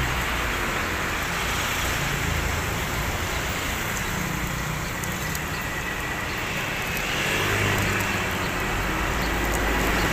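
Steady roadside traffic noise, with the low hum of passing vehicles growing louder about seven seconds in.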